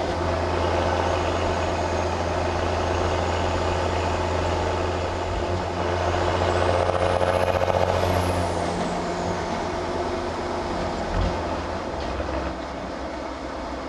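Lifted restomod Chevrolet pickup truck driving on the road: a steady low engine drone with road noise. About six seconds in it swells louder while a high whine rises and then falls away.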